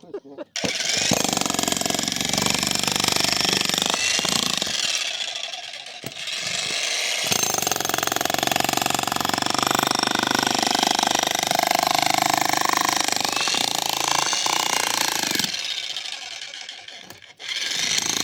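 Electric jackhammer, the 2200-watt Xtreme Power, hammering into a concrete slab. It starts about half a second in, eases off briefly around six seconds, runs steadily again, then stops around sixteen seconds and starts up once more just before the end.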